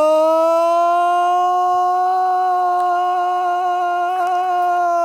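A person's voice holding one long, loud, steady 'ahhh' at a fairly high pitch: the drawn-out wind-up of a pretend sneeze.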